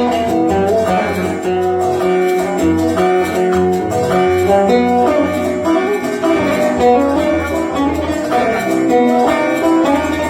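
Oud playing an instrumental passage in Yemeni Sanaani style: a continuous run of plucked notes.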